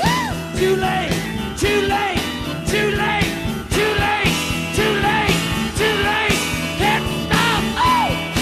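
Rock music: a band playing between sung lines, with drums keeping a steady beat and a lead line that arches up and down in pitch.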